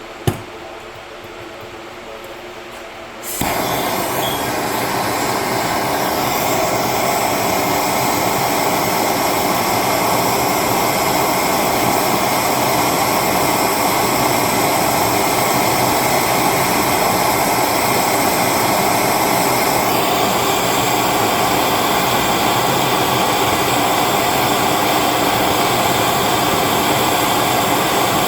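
A single click, then a handheld gas torch burning with a steady loud hiss from about three seconds in, heating seized bolts to free them.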